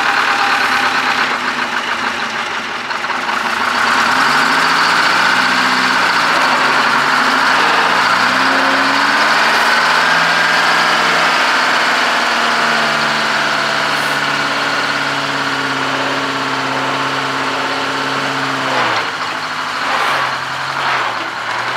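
Old International Transtar truck's two-stroke Detroit Diesel engine running under load while the truck is manoeuvred: it revs up and falls back twice, holds a steady higher speed, then drops back near the end.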